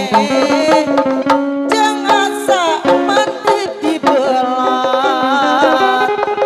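Sundanese procession music: drums beating fast under a melody of held, wavering notes, with a quick sliding run about two and a half seconds in.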